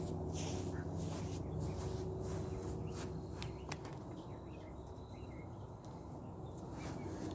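Insects chirping in short repeated pulses over a low, steady hum.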